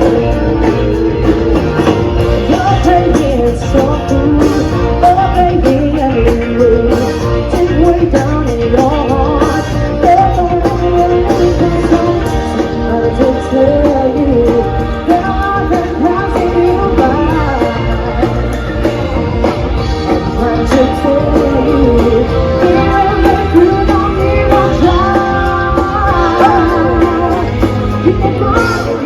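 Background music: a rock-and-roll style song with a male singing voice over guitar, bass and drums at a steady beat.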